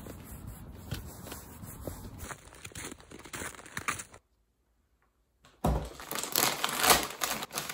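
Footsteps crunching through packed snow and slush. After a short silence comes a louder crinkling and tearing as a plastic packaging bag is handled and opened.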